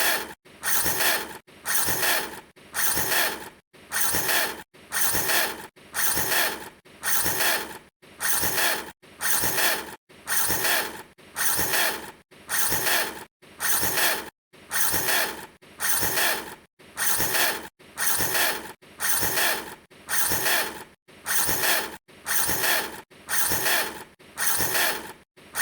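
A short rasping revving noise repeated in an identical loop, a little more than once a second, each burst stopping abruptly before the next.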